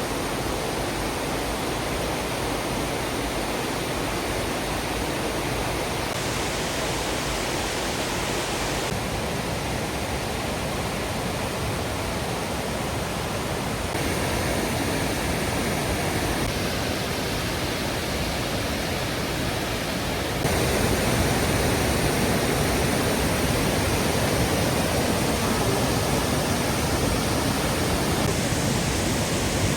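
Waterfall rushing in a steady roar of falling water, stepping abruptly louder twice, about halfway through and again about two-thirds in.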